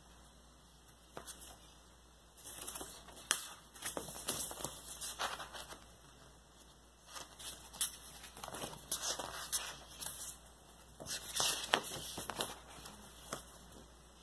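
Large printed paper insert of a vinyl record being handled, flexed and turned over: paper rustling and crinkling in irregular bursts, with a few sharp snaps.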